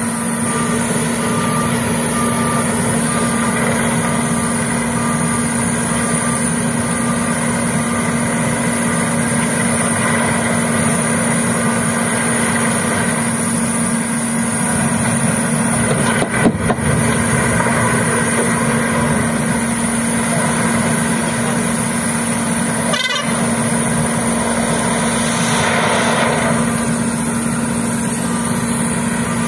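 JCB backhoe loaders' diesel engines running steadily with a constant hum, with a couple of short knocks along the way.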